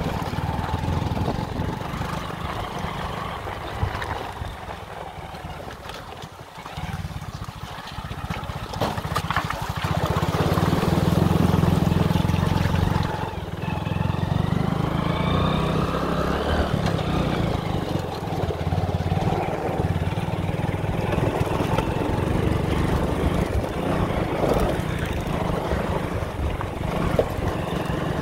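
Motorbike riding along, its engine running under heavy wind buffeting on the microphone, louder from about ten seconds in.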